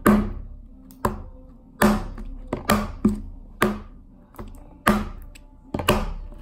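Sticky slime slapped and jabbed against a tabletop by hand: about ten sharp slaps, irregularly spaced.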